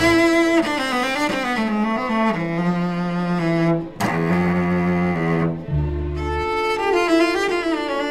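Instrumental intro music: sustained notes with a melody moving above them and a low bass line, a fresh chord striking about halfway through.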